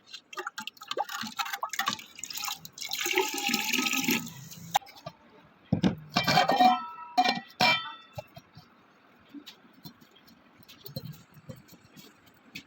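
Liquid splashing and pouring, then glass clinking with short ringing tones and a few knocks, quieter toward the end.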